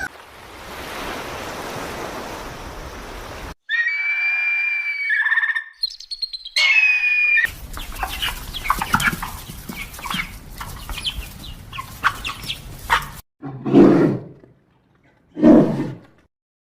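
A run of cut-together animal sound clips: a hissing noise, then birds calling and chirping, then two short, loud, deep animal calls near the end.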